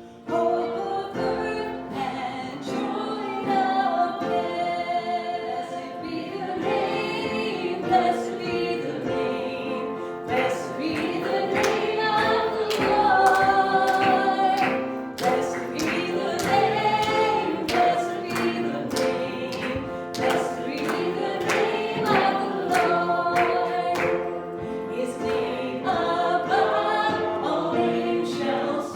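A group of voices singing a hymn together.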